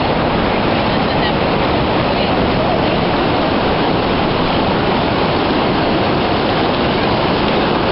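Whitewater river rapids rushing steadily, a loud even wash of moving water.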